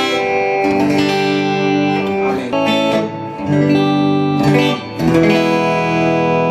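Gibson Les Paul fitted with Baggs piezo bridge saddles, played through an acoustic amp and an electric amp at once, so acoustic and electric tones sound together. A series of strummed chords ring out, a new chord struck every second or two.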